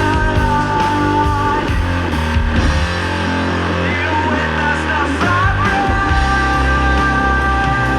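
Doom/sludge metal music: heavy guitar-driven low notes held under long sustained high tones, with a brief wavering bend in the high line about halfway through.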